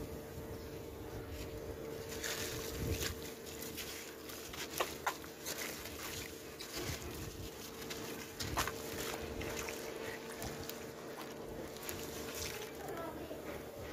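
Sand-and-cement chunks crumbled by hand into a tub of muddy water: irregular gritty crunching with patters and splashes as the pieces drop into the water.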